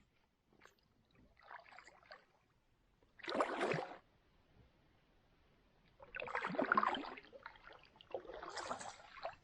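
Canoe paddle strokes in the water: four separate swishing splashes a couple of seconds apart, the second and third loudest.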